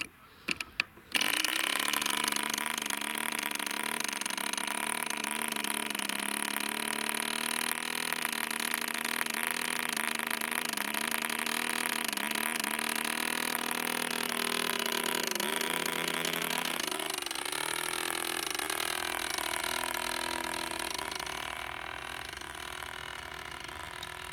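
Model airplane motor and propeller starting suddenly about a second in and running steadily at high power. Later the pitch wavers, dips and rises as the hand-launched plane climbs away, and the sound fades toward the end.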